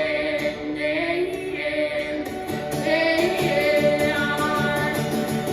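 A live song: a voice singing long, gliding held notes over instrumental accompaniment.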